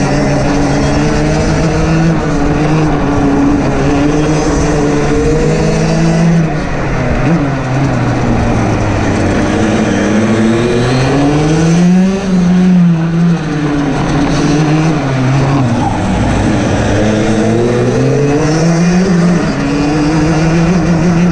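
Rotax DD2 racing kart's 125 cc two-stroke engine running at race revs, its pitch holding, then climbing to a peak about halfway through, dropping back, and climbing again near the end.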